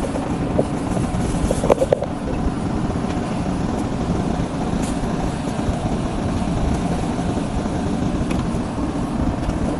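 Steady rumble and hiss inside the executive-class passenger coach of a train, with a few small clicks about two seconds in.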